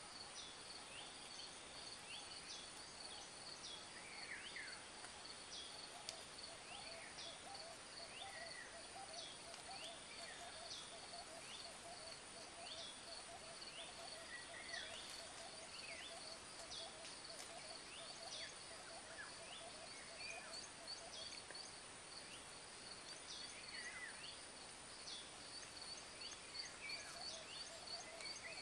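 Faint woodland ambience: many short, downward-sliding bird chirps, about one a second, over a steady high insect trill and a lower pulsing drone.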